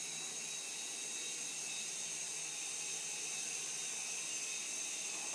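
Small toy helicopter's electric motor and rotor whirring steadily in flight: an even faint hiss with a thin high whine.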